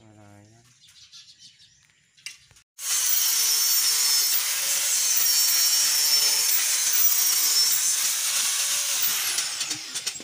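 Handheld angle grinder cutting into a small steel part: a loud, steady grinding with a high whine that starts abruptly about three seconds in and winds down, its pitch falling, near the end.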